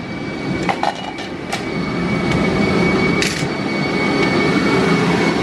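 Steady mechanical rumble with a thin high whine, growing louder over the first two seconds, with a few light clicks and knocks in the first second and a half.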